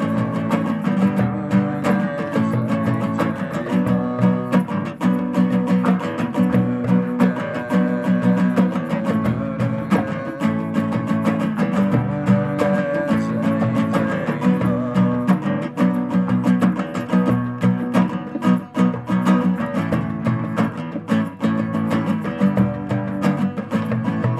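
Live acoustic guitar strumming a steady rhythm, with frame drum and hand drum beats over it.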